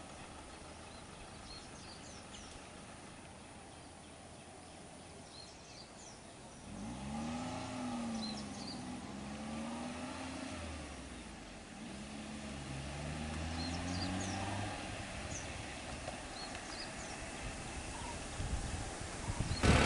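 A small hatchback car's engine accelerating as it drives past, its pitch rising and falling several times over about eight seconds, starting about a third of the way in. Birds chirp faintly in the background.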